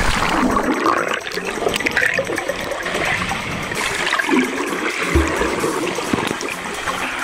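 Swimming-pool water sloshing and bubbling around a camera as it is dunked under the surface, picked up by the camera sealed inside a waterproof bag.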